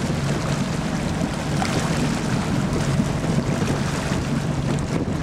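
Motorboat under way: a steady engine hum under water rushing past the hull, with wind buffeting the microphone.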